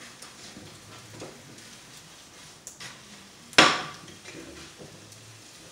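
Omelette frying in a pan on the stove, with faint sizzling and small scrapes and clicks of a utensil against the pan. About three and a half seconds in there is one loud, sharp clank of metal cookware that rings briefly.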